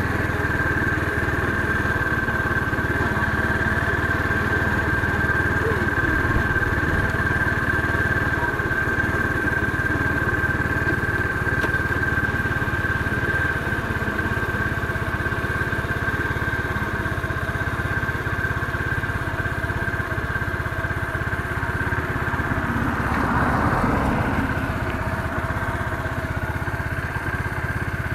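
Motorcycle engine running steadily while riding along the road, with a steady high whine over the low engine rumble.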